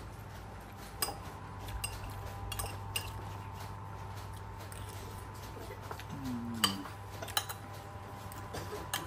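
Spoon or utensils clinking on dishes during a meal: scattered light clicks, the sharpest about six and a half seconds in, over a steady low hum, with a short low voice sound just after six seconds.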